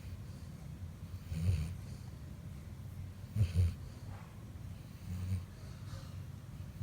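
Labrador retriever snoring in its sleep: three snoring breaths about two seconds apart, the middle one the loudest and doubled.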